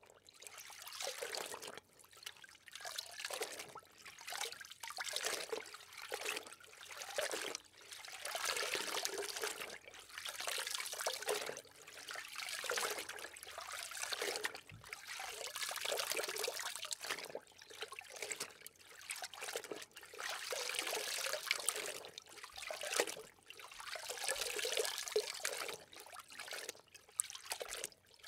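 Water rushing and bubbling around an underwater camera, in irregular surges every second or two with short breaks between.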